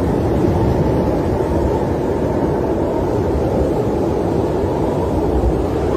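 Steady, deep rushing of snowstorm wind, an even low roar with no distinct crackles standing out.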